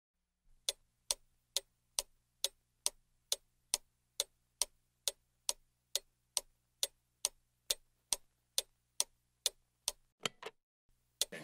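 Clock ticking evenly, about two ticks a second, stopping near the end, followed by a few scattered clicks.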